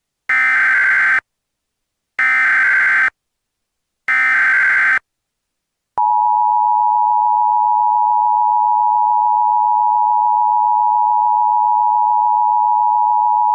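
Emergency Alert System tones: three short bursts of SAME digital header data, each just under a second long with short gaps between, then about six seconds in the steady two-tone EAS attention signal (853 and 960 Hz) begins and holds. Together they mark the start of an emergency alert broadcast.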